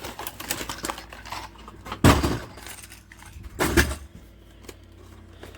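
Hard-bodied fishing lures and their packaging being handled: light clicking and rattling, then two louder knocks about two seconds and three and a half seconds in.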